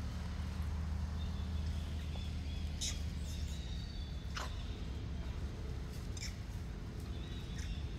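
Forest ambience: a few short, high-pitched animal squeaks or chirps, a second or two apart, over a steady low rumble.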